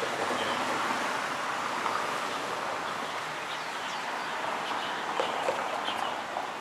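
Steady outdoor street ambience: a constant hum of traffic, with a few faint bird chirps through the second half.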